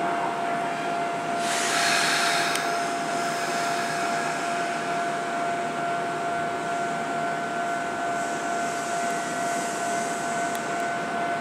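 Electric commuter train approaching a station platform at low speed, heard as a steady rumble with a thin, steady high tone throughout. A brief hiss comes about one and a half seconds in.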